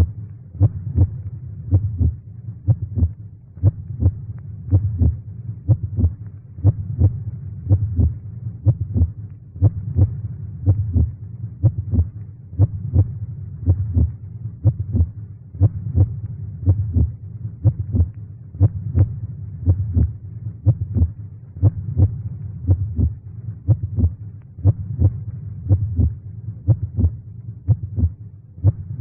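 Heartbeat sound effect: low, evenly repeating thumps of a beating heart over a steady low drone, keeping an even pace throughout.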